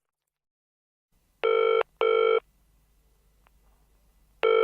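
Telephone ringing: an incoming call to an answering machine. There is a double ring about a second and a half in, and the next ring begins near the end.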